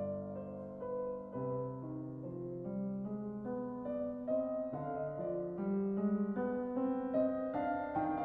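Slow, calm instrumental piano music: a melody of held notes over sustained low notes, getting a little louder near the end.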